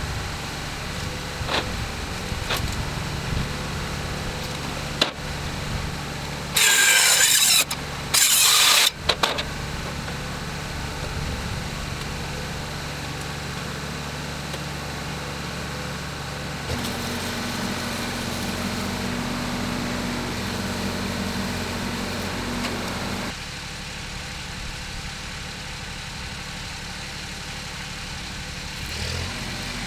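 Diesel engine running steadily, interrupted about six seconds in by two loud hissing bursts, each about a second long. The engine's note shifts about seventeen seconds in and drops back about twenty-three seconds in.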